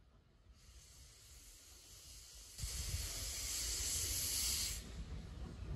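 Steam locomotive S-304 letting off steam: a hiss that starts faintly about half a second in and grows much louder for about two seconds, with a low rumble beneath, then eases near the end.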